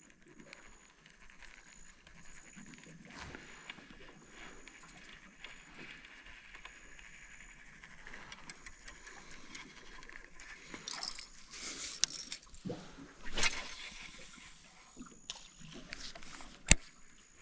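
Quiet riverside ambience with a faint high chirp repeating about once a second. In the second half come a few short knocks and splashes: the loudest about thirteen seconds in, and a sharp click near the end.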